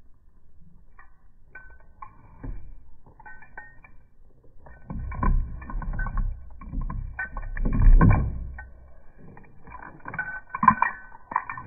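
Puppy licking and eating from a plastic dish right at the microphone: irregular clicks, laps and knocks of tongue and muzzle against the dish. They grow busier about five seconds in and are loudest around eight seconds.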